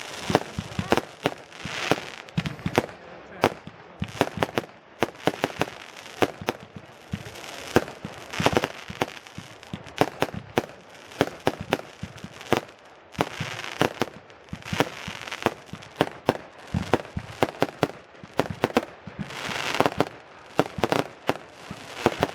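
Fireworks going off: an irregular stream of sharp bangs and crackles, several a second, with denser bursts of crackling now and then.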